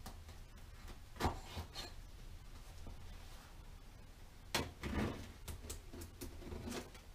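Cardboard shipping box being opened by hand: rubbing and scraping of cardboard and tape, with a sharp tap about a second in and a run of crackles and small taps past the middle.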